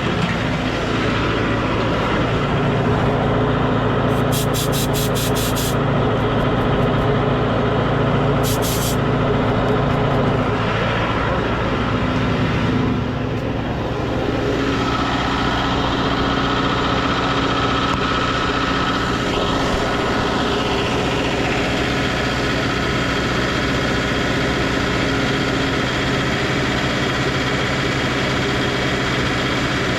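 Engine idling steadily, its pitch shifting slightly about halfway through. Short runs of rapid clicking come twice in the first third.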